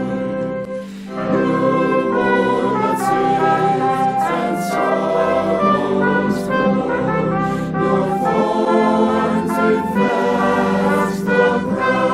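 Music: an ensemble playing sustained chords, with a brief dip in loudness about a second in.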